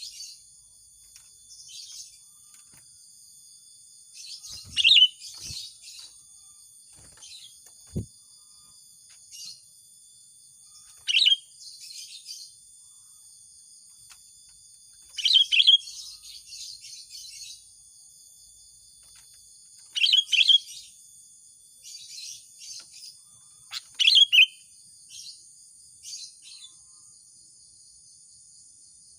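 Sooty-headed bulbul (kutilang) giving short, loud bubbling call phrases every four to six seconds, over a steady high insect buzz.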